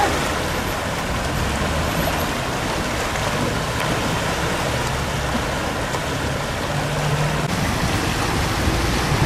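Steady rush of fast-flowing water in an irrigation canal, with a low hum underneath from about three to eight seconds in.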